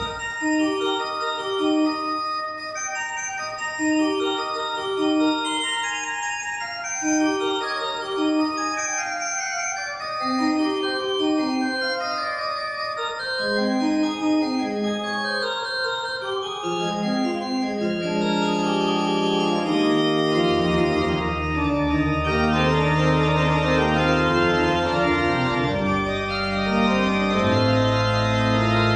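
Gottfried Silbermann pipe organ played, restored to its original pitch (a half tone higher) and original temperament. It opens with short repeating phrases in the treble; from about two-thirds of the way in, lower voices and held pedal bass notes come in and the sound grows fuller.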